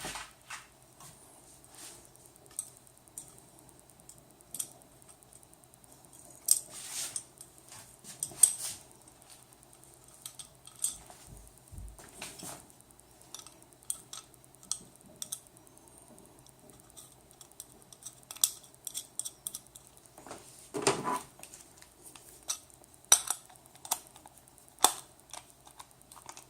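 Scattered light clicks, taps and small clatters of screws, nuts and brackets being handled and fitted by hand, with a couple of longer scrapes, one about a quarter of the way in and one about three-quarters through.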